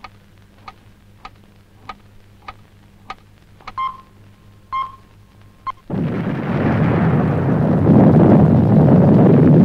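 Steady ticking, about one tick every 0.6 seconds, with two short beeps about four and five seconds in, then the sudden loud, sustained rumble of a massive blasting charge in the mountain valley, swelling again a couple of seconds later.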